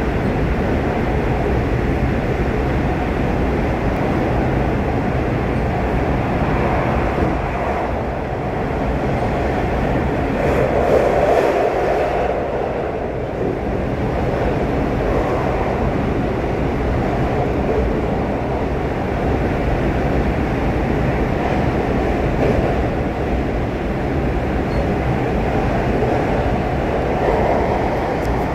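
A train running through a tunnel, heard from inside the carriage: a steady, loud rumble of wheels and running gear that swells briefly about ten to twelve seconds in.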